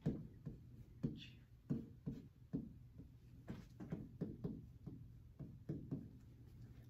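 A pen tapping and scratching on an interactive whiteboard screen while words are written by hand: a string of faint, short, irregular taps, about two a second.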